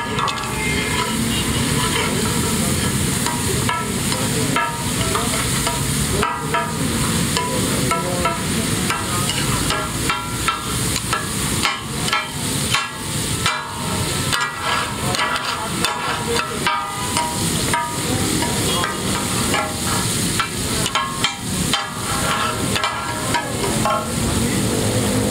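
Masala mutton chops frying on a large iron tawa: a steady sizzle, broken by frequent irregular metal clicks and scrapes as the food is stirred and worked on the griddle.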